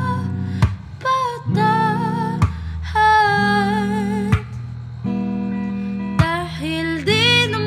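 Acoustic guitar strummed slowly, a chord about every two seconds, under a woman singing long held notes with vibrato in a slow ballad.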